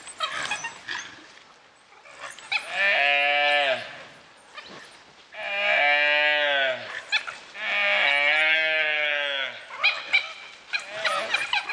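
Gaur giving three long, loud bawling calls, each about one and a half seconds long and dropping in pitch at the end. The calls come about a second apart, amid a distress attack by wild dogs on a calf.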